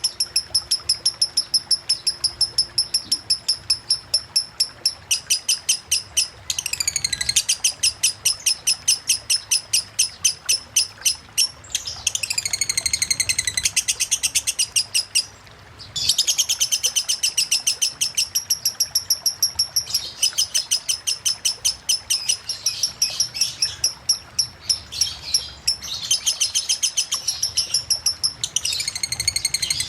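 Lovebird singing in the fast 'ngetik' style of a 'konslet' bird: long runs of rapid, evenly repeated high chips, broken by a brief pause about fifteen seconds in.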